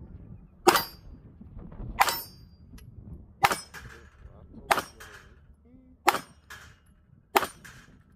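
Glock 19X 9 mm pistol fired six times, evenly paced about one shot every 1.3 seconds, with a fainter metallic clang just after most shots.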